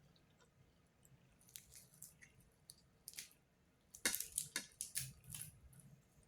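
Cat eating close up: irregular wet chewing and lip-smacking clicks, loudest and quickest about four seconds in.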